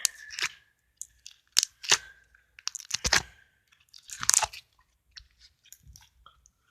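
Homemade slime being squished and handled, giving a scattered string of wet clicks and pops, the loudest a crackling squelch about four seconds in.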